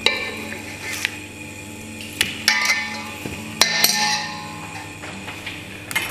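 A metal spoon clinking and knocking against a stainless steel mixing bowl as marinated pork belly is turned and lifted out, with about seven sharp, irregularly spaced clinks.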